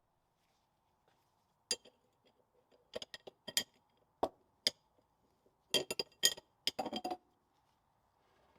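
Steel parts of a differential and its pressing tools clinking and knocking together as they are handled and stood upright on the bench: about a dozen short, sharp metallic clinks, some in quick pairs, with a little ringing.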